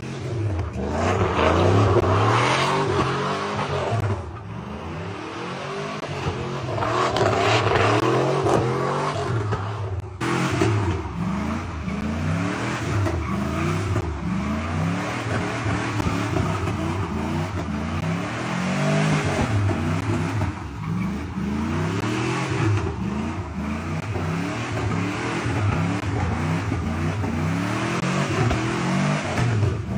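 Pickup truck doing a burnout: the engine revs up and falls back again and again, about once a second or two, over the steady noise of spinning tires.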